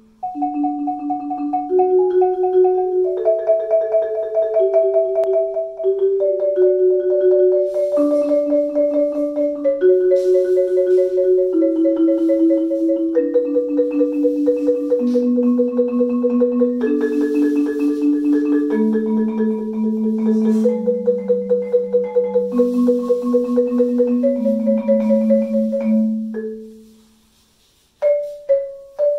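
Marimba played with mallets in slow rolled chords: two or three notes at a time, sustained by rapid repeated strokes and changing every second or two. The playing dies away about 26 seconds in, and a new phrase starts just before the end.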